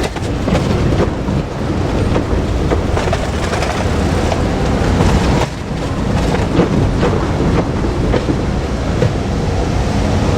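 JR Kyushu KiHa 200 diesel railcar passing close by, its wheels clacking over the rail joints.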